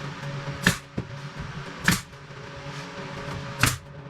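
Three sharp shots from a nail gun, about a second and a half apart, driving nails to fasten trim to a wooden tabletop, over a steady low hum.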